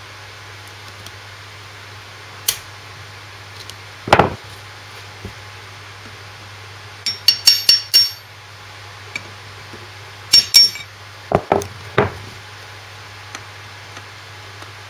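Metal clinks and sharp taps as circlip pliers and a steel drift work a retaining circlip into its groove in the bearing housing of a Land Rover LT76 transfer box. Isolated clinks and knocks, with two short clusters of ringing metallic taps near the middle, over a low steady hum.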